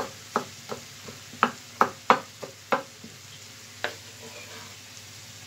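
Kitchen knife chopping tomatoes on a wooden cutting board: about nine sharp, irregular knocks over the first four seconds, then the diced tomato is pushed off the board into the pan. A pan of chopped kokoreç sizzles steadily underneath.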